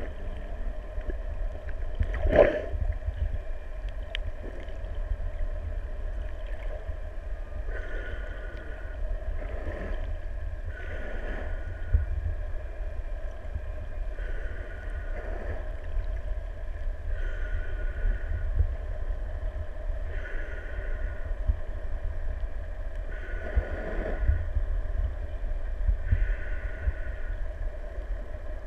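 Underwater sound picked up by a camera in its waterproof housing: a steady low rumble with a few steady humming tones. A sharp knock comes about two seconds in, and from about eight seconds in a short hiss recurs about every three seconds.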